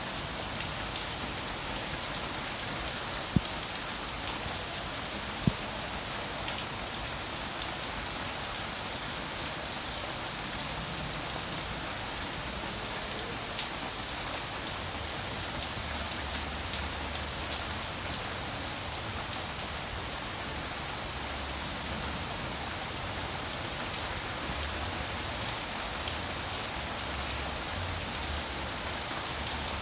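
Steady rain falling, an even hiss full of fine drop patter, with two sharp louder taps about three and five and a half seconds in.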